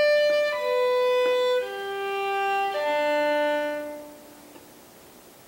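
Solo violin playing four slow held notes, each lower than the last, with vibrato. The last note dies away about four seconds in.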